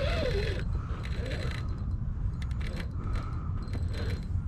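Fishing reel being cranked in short bursts, its gears whirring, while a hooked jack crevalle is reeled in.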